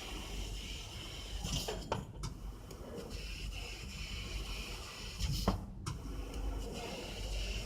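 Fiber laser cutting machine running: a steady low hum with a hiss above it, and two brief louder swells, about a second and a half in and again about five and a half seconds in.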